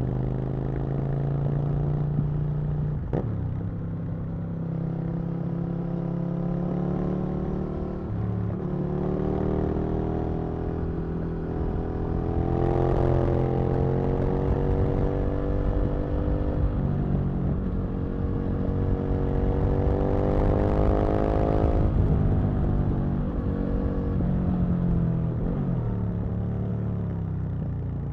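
Aprilia RSV Mille's 60-degree V-twin engine pulling hard through the gears, its pitch climbing and dropping back at each upshift, loudest about three quarters of the way through. Near the end the throttle closes and the engine note falls away as the bike slows.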